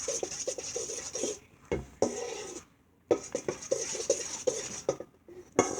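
A utensil stirring a runny slime mixture in a bowl in quick repeated strokes, scraping and clinking against the bowl. The stirring pauses about two and a half seconds in, then starts again.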